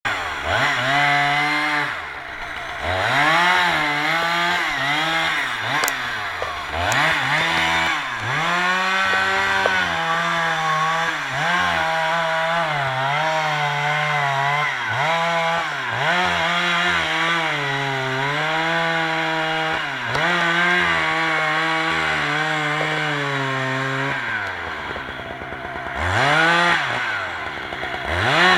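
Two-stroke chainsaw cutting timber, its engine speed dipping and recovering every second or two as the chain loads up in the wood. It eases off near the end, then revs up sharply twice.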